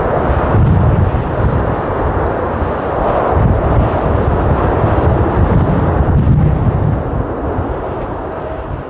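Boeing 747-400 airliner's jet engines rumbling steadily as it rolls out along the runway after landing, the sound easing off gradually over the last couple of seconds.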